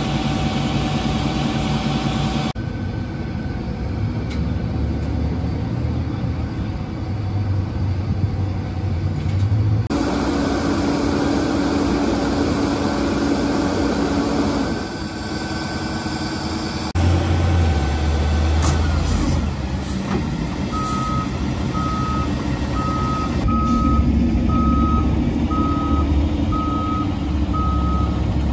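Heavy diesel trucks idling and running, with the sound changing abruptly a few times. From about two-thirds of the way in, a truck's reversing alarm beeps steadily, about once a second.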